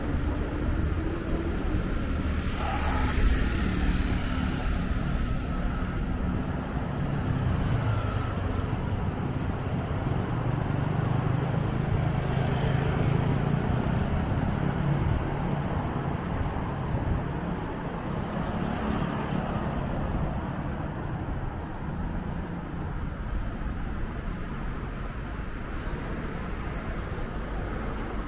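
Road traffic on a city street: a steady rumble of passing engines and tyres, with one heavier engine growing louder through the middle and then fading away.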